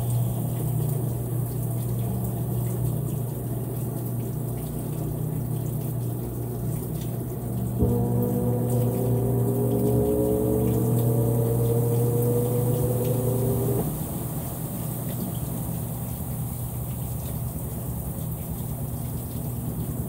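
Consul 16 kg top-load washing machine spinning a load of towels while draining: a steady motor hum with water running out. About eight seconds in a whine joins it, rising slowly in pitch, and cuts off suddenly about six seconds later.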